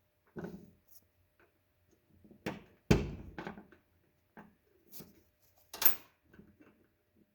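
Scattered knocks and clicks of small metal parts being handled on a Stihl MS 362 C chainsaw as a tiny C-clip is pushed onto the chain guard roller post. The loudest is a dull thud about three seconds in, with a sharp metallic click near the end.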